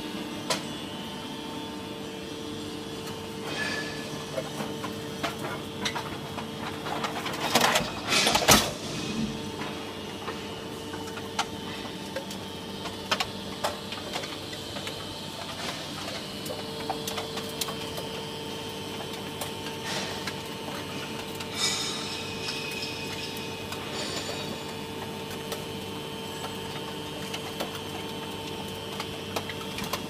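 Automatic aluminium can baler running with a steady machine hum. The hum drops out for several seconds after a loud burst of noise about eight seconds in, then comes back, with scattered clicks throughout.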